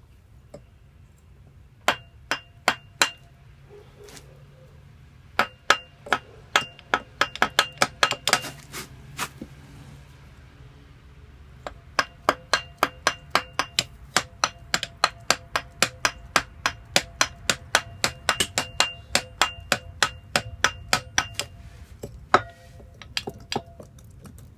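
Kawasaki VN1500 V-twin engine running with a loud, sharp metallic knock, about three a second, that comes in runs with pauses between them. The uploader puts the knock down to a connecting rod problem or crankshaft wear.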